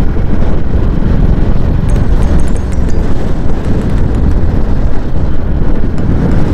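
Loud wind buffeting the microphone, a dense, fluctuating low rumble.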